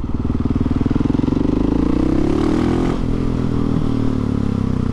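Husqvarna 701 Supermoto's single-cylinder four-stroke engine pulling through an open exhaust with the baffle removed. Its pitch rises for about two and a half seconds, then falls as the throttle is rolled off.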